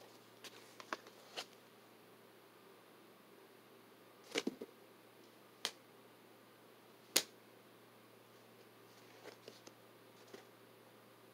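Scattered soft clicks and taps of Hot Wheels cardboard-and-plastic blister cards being handled, put down and picked up, with one sharper tap about seven seconds in.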